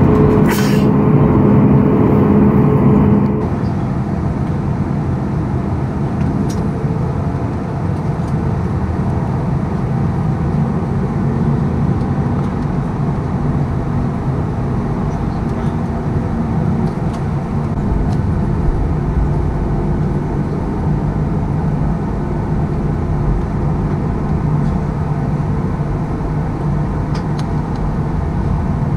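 Steady cabin noise of a Boeing 737-8 MAX taxiing, with its CFM LEAP-1B engines at low taxi thrust: an even rumble with a low hum. It is louder for the first three seconds, with a steadier higher tone, before changing to the quieter rumble.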